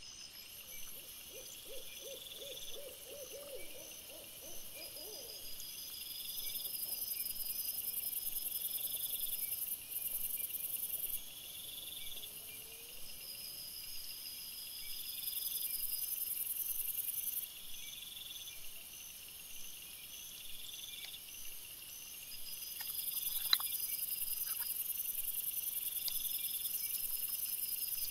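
Night insects, crickets among them, chirp steadily in several high-pitched bands, swelling and fading in long stretches. In the first few seconds an owl gives a short quavering hoot, and a single sharp click comes about three-quarters of the way through.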